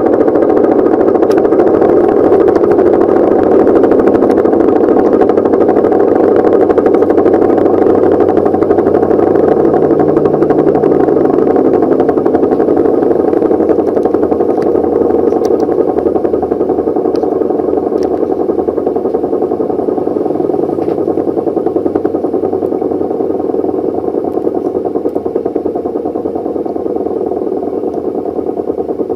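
Elektror L138 electro-mechanical air-raid siren sounding its high tone, a loud steady wail near 500 Hz from the rotor spinning at full speed, easing off slightly in loudness toward the end.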